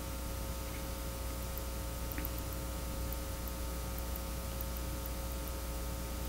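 Steady electrical hum with faint hiss, in the room tone of a recording's sound system.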